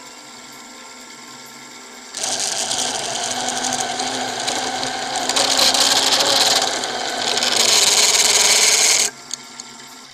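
A hand-held tool pressed into the grooves of a small wooden top spinning on a wood lathe, burnishing them by friction. It makes a loud hissing screech that starts about two seconds in, swells twice and cuts off suddenly near the end. Under it the lathe runs with a quieter steady hum.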